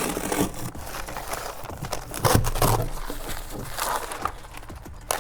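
Synthetic roofing underlayment rustling and crinkling as it is handled and laid, with a few short knocks.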